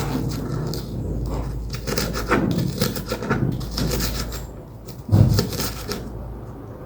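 Knife chopping onions on a cutting board: irregular knocks of the blade against the board, with a heavier thump about five seconds in.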